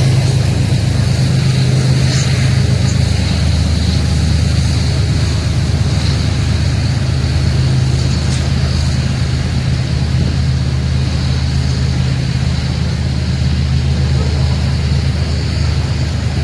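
Diesel locomotive engines working hard to pull a heavy grain train, a loud, steady low drone.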